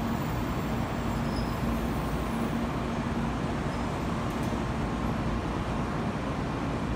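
JR DE10 diesel-hydraulic locomotive's engine running as it moves slowly along the yard tracks: a steady low rumble with a faint hum.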